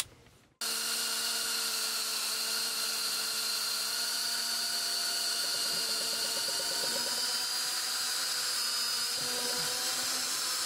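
A DeWalt cordless drill starts about half a second in and runs at a steady speed, with an even motor whine, as it bores through the dashboard.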